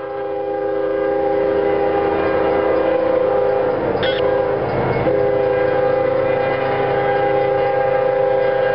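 Diesel freight locomotive's multi-chime air horn held in one long, steady blast, several notes sounding together as a chord, with a brief waver about four to five seconds in.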